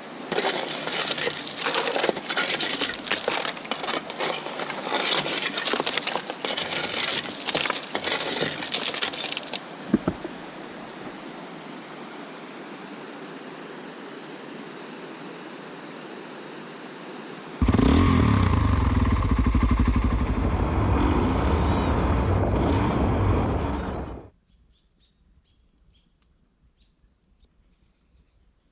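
A loud rustling, crackling noise with many sharp clicks for about ten seconds. Later a motorbike engine runs for about six seconds, then cuts off abruptly.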